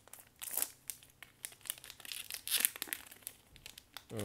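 Foil trading-card booster pack being torn open along its top by hand, the wrapper crinkling and crackling, with louder bursts of tearing about half a second in and again around two to three seconds in.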